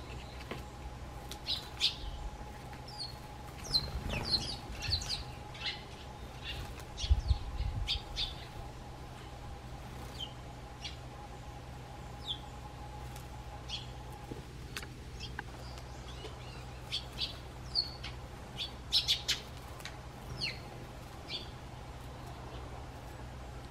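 Eurasian tree sparrows chirping: short, high chirps scattered throughout, clustering about four to eight seconds in and again near the end.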